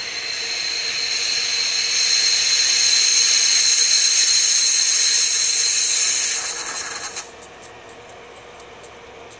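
Overloaded loudspeaker, its passive crossover driven with about 200 watts, putting out a loud hiss with a steady high whistle on top. The sound swells, then cuts off suddenly about seven seconds in, leaving only a faint hiss with small crackles.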